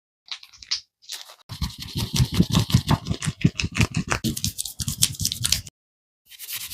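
Barber's hands working a head massage: a rapid run of sharp cracks and slaps, several a second, lasting about four seconds, with a short burst before it and another near the end.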